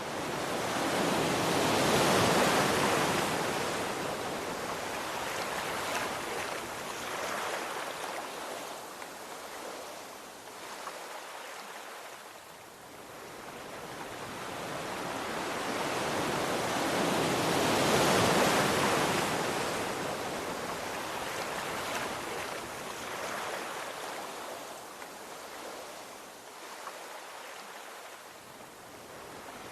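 Ocean waves breaking and washing on a shore: two big swells of surf, one about two seconds in and another about eighteen seconds in, each ebbing slowly back between.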